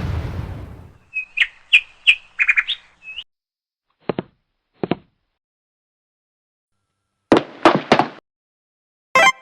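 Comedy sound effects edited over bird chirps. A loud hit fades out over the first second, then comes a quick run of high chirps, then two soft thuds. Three sharp knocks follow near the end, and a repeating musical beat starts just before it closes.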